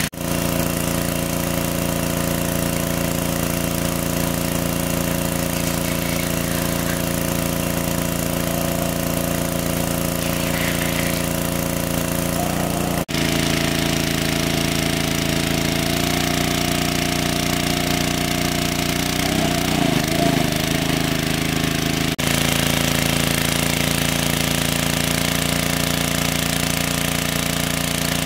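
Engine-driven water pump running steadily at a constant speed, with two abrupt breaks in the sound.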